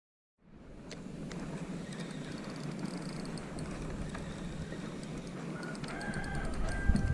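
Outdoor ambience starting after half a second of silence: a steady low rumble with scattered clicks, and a rooster crowing faintly for about a second and a half near the end.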